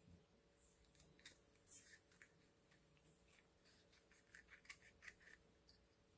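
Faint snips of small scissors cutting through a leathery ball python eggshell, a few scattered cuts and then a quicker run of snips about four seconds in.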